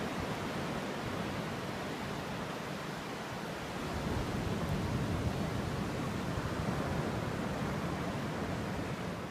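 Steady rushing noise of surf and wind, fading out at the very end.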